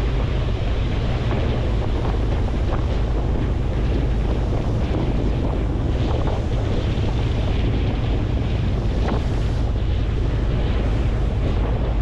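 Wind buffeting the microphone over the rush of sea water and the low rumble of a boat under way, steady throughout.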